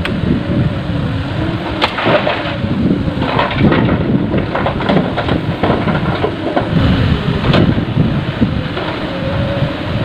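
Heavy diesel machinery running, with repeated thuds and clatters of padas rock dropping into a dump truck's steel bed, the sharpest about two seconds in and again several times later.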